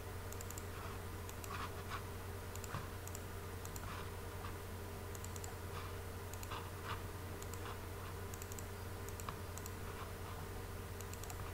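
Faint, scattered clicks of a computer mouse and keyboard over a steady low hum.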